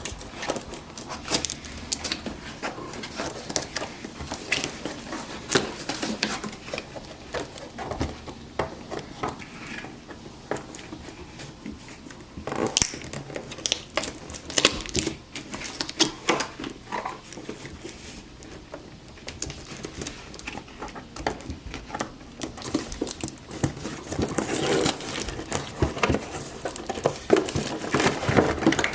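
Cardboard toy box and its plastic packaging being handled and opened: irregular rustling, crinkling and clicking, busier near the end.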